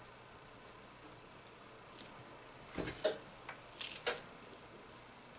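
Sliced onion being scattered by hand onto a sauced pizza base on a metal pan: a few soft clicks and rustles about two, three and four seconds in, the one at about three seconds the loudest.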